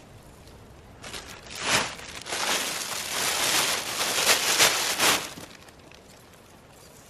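Thin plastic carrier bag crinkling and rustling close to the microphone as it is handled and set down. It starts about a second in and stops after about five seconds.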